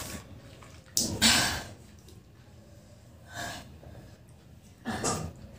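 A woman's sharp, noisy breaths, puffing and sucking air through the mouth against the burn of spicy noodles; three bursts, the loudest about a second in.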